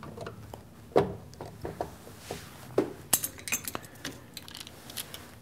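Sharp clicks and knocks of hard plastic electrical parts being handled: one loud click about a second in as the contactor snaps onto its DIN rail, then a quick run of smaller clicks as a DIN-rail circuit breaker is handled.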